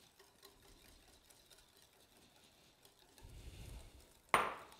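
Mostly quiet kitchen, with faint handling sounds of bowls and utensils on a countertop. A low rumble of handling comes about three seconds in, and a single sharp knock follows near the end.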